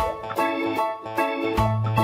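Background music with an even beat, bright notes struck about two and a half times a second over a bass line that steps between notes.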